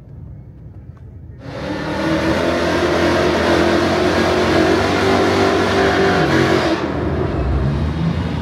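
A Ford Mustang's engine rumbles low, then suddenly revs hard about a second and a half in and holds at high revs for about five seconds. Near the end it drops back to a lower rumble.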